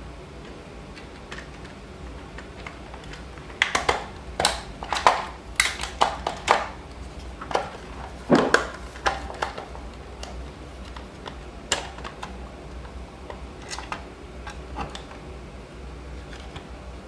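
Plastic shell parts of a 12-volt tire compressor clicking and knocking as they are handled and fitted back together: a run of sharp clicks and taps in the first half, one heavier knock just after, then a few scattered clicks.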